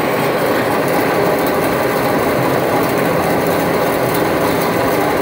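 Water forced through a DN100 (4-inch) orifice plate in a test pipe, cavitating heavily: a steady, loud, dense crackling rush from vapour bubbles collapsing downstream of the plate. This is the sound of super cavitation, close to choked flow.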